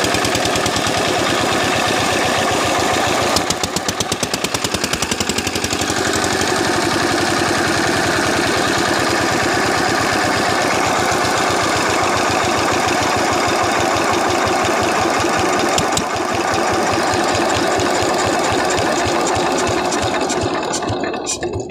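Single-cylinder stationary diesel engine running a water pump with a fast, even exhaust beat. The beat pulses harder for a couple of seconds about three seconds in, and near the end the sound starts to fall away as the engine is shut down.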